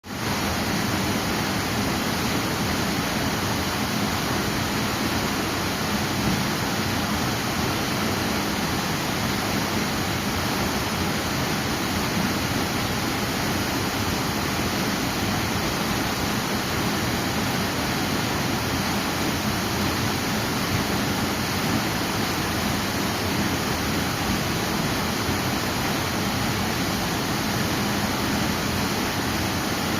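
Waterfall: falling water rushing in a steady, even wash of noise that never changes in level.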